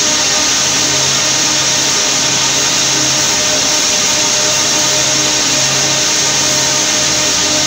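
Steady machine noise: a TCM forklift running close by, over the constant hum and high hiss of spinning-mill machinery.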